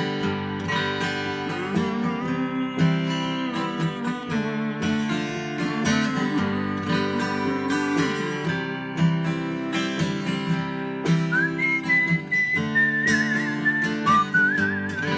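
Acoustic guitar strumming a folk tune. A high wavering melody comes in over it about eleven seconds in.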